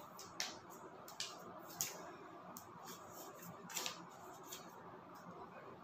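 Paper and card packaging of an iPhone box being handled: a few short, crisp rustles and light clicks, the strongest about half a second, just under two, and about four seconds in, over a faint room hush.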